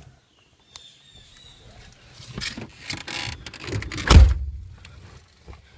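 Rustling and shuffling of a person sliding across a car's front seat, with one heavy thump about four seconds in.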